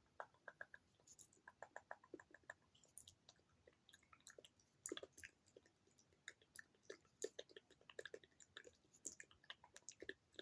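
ASMR mouth sounds: a quiet, irregular run of wet tongue clicks and lip smacks, several a second, some with a short hollow pop.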